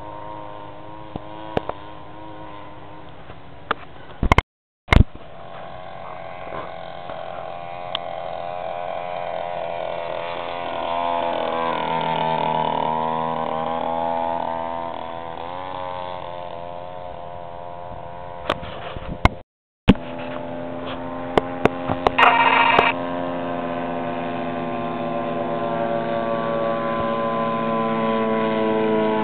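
Engine of a large-scale radio-controlled Curtiss Jenny biplane running in flight: a steady droning note whose pitch bends up and down as the plane passes, about twelve seconds in. The sound cuts out briefly twice.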